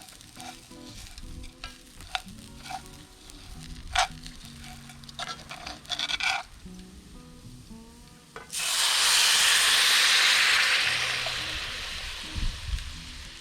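Paella cooking in a cast-iron skillet: a spoon stirs and taps in the pan with scattered clicks. About eight seconds in, a sudden loud sizzle starts, then slowly dies down over the last few seconds.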